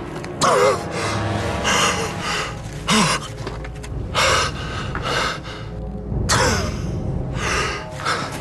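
A person gasping for breath in a series of sharp, harsh gasps, about six of them a second or so apart, some carrying a strained voiced edge, over low dramatic music.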